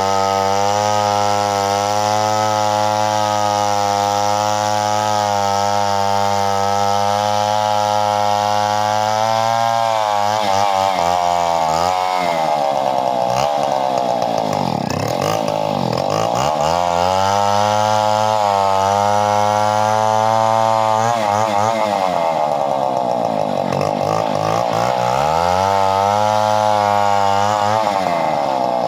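Two-stroke chainsaw running at high revs, steady for the first third. Then its pitch sags and recovers several times as the chain bites into wood under load.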